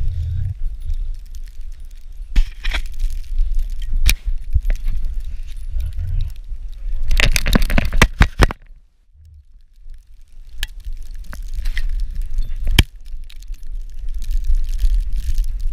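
Handling noise from a camera strapped to a running husky: a low rumble of wind and jostling with scattered sharp knocks and clicks. A dense run of scrapes and clicks comes about halfway through, then the sound drops away to near quiet for a moment before the rumble returns.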